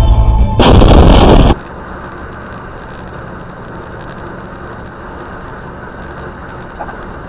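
Music cuts off into a loud, harsh burst of noise about a second long, then a steady, much quieter road noise from a dashcam with faint clicks.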